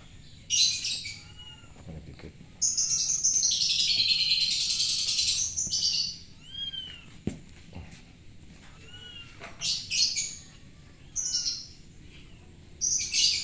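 Small birds chirping and chattering in loud bursts, the longest lasting about three seconds, with fainter, shorter high calls in between.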